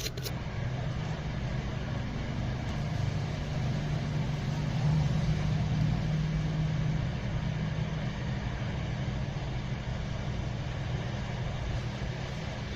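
Steady low hum and airy rush of a hot-air rework blower heating the charging connector's solder joints on a phone board, bringing the solder up to melting.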